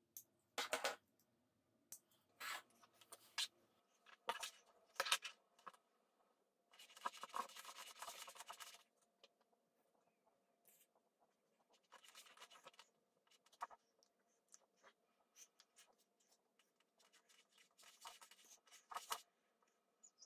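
Faint handling sounds of craft items and a hot glue gun on a tabletop: scattered clicks and knocks, with a stretch of scratchy rubbing about seven seconds in and shorter ones later.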